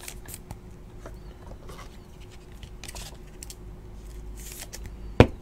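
A trading card being slid into a clear rigid plastic top loader by hand: faint plastic rubbing and light scattered clicks, then a sharp click near the end.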